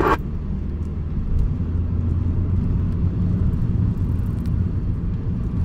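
Steady low engine and road rumble inside a moving car's cabin. Right at the start a short burst of hiss comes from the CB radio's speaker as the incoming transmission ends.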